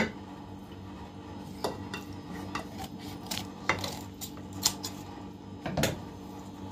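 Knife at work scoring a whole raw chicken: scattered, irregular clicks and knocks of the blade against the board and dish, about half a dozen, over a steady low hum.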